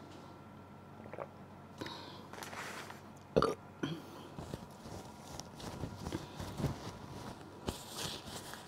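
A woman burps once, short and loud, about three and a half seconds in. Near the end a paper tissue rustles as she wipes her mouth.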